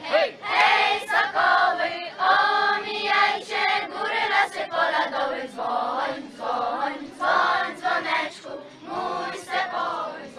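A group of children singing a song together, many young voices at once, with short breaths between phrases.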